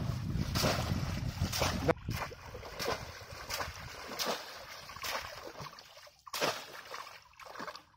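Bamboo polo fish trap plunged again and again into shallow water, a splash about every three-quarters of a second. Wind rumbles on the microphone in the first two seconds.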